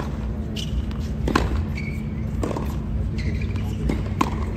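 Tennis balls being struck with racquets and bouncing in a practice rally: a string of sharp pops about a second apart over steady low background noise.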